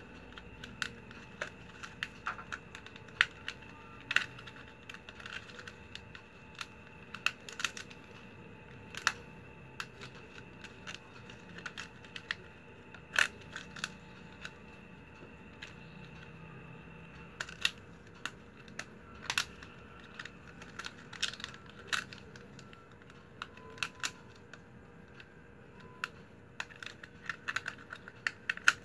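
Stiff plastic packing-strap strips being woven by hand: irregular sharp clicks and crinkles as the strips are bent, tucked and slid through the weave, over a faint steady hum.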